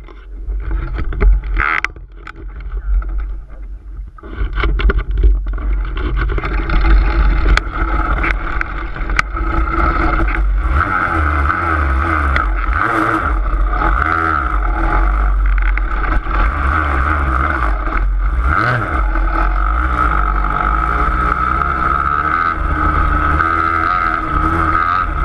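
An engine running at steady revs, a droning sound over a heavy low rumble; uneven for the first few seconds before settling.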